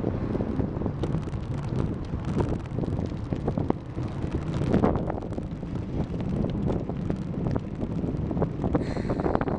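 Wind buffeting the microphone of a camera taped to a moving bicycle, a steady low rumble with many small clicks and rattles from the bike. A brief higher-pitched sound comes near the end.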